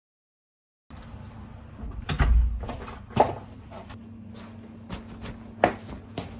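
Door and entryway sounds starting about a second in: a heavy thump about two seconds in, like a door shutting, then a few sharp clicks and knocks, with slippers stepped into on a wooden floor near the end.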